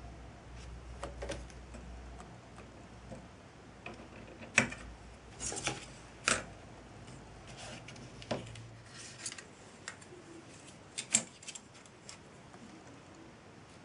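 Small metal pieces being handled on a bench: a brass eccentric blank, a steel scriber and a steel angle template clicking and tapping against each other and the paper-covered surface. A dozen or so scattered sharp clicks, the loudest about four and a half and eleven seconds in, with light handling rustle between.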